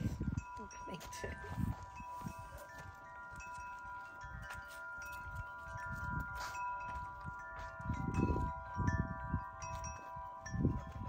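A large cluster of metal tube wind chimes ringing together, many steady tones sounding and overlapping at once. Low rumbles come and go underneath, loudest a little before the end.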